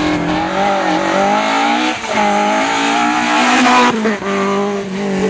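Rally car engine at full throttle on a stage, its pitch climbing through the revs and dropping sharply at a gear change about two seconds in, then climbing again before another sudden break near four seconds.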